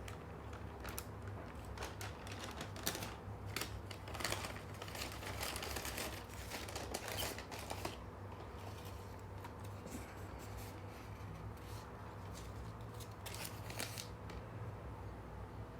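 Scattered clicks and rustles of packaging and a sneaker being handled, likely the shoebox and its paper: busiest in the first half, with a few more clicks near the end, over a steady low hum.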